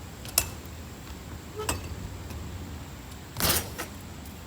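Scattered sharp knocks and clicks from BMX bikes on skatepark ramps, with one louder, brief scraping burst about three and a half seconds in, over a steady low background rumble.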